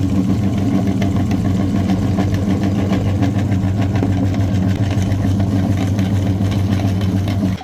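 A motor vehicle engine idling steadily with a fast even ticking, cut off suddenly at the end.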